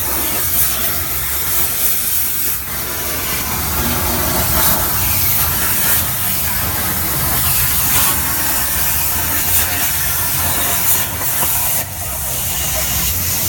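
CNC plasma cutter cutting metal: the plasma arc makes a steady, loud hiss over a low hum.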